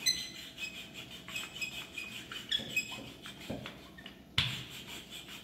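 Wooden rolling pin rolling out cookie dough on a floured granite countertop: soft rubbing with scattered light knocks, and one sharper knock about four seconds in.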